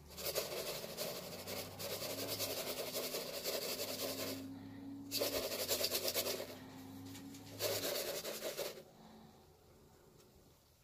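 Small superworms shaken in a clear plastic cup, scraping and rattling against the plastic in three bursts of rasping. The first lasts about four seconds; two shorter ones follow, one a little past the middle and one near the end.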